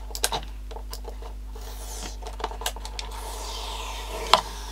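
A sticker label being peeled off a plastic battery pack, a drawn-out tearing rasp that falls in pitch, with small scratches and clicks of a screwdriver against the plastic casing. A sharp click comes about four seconds in.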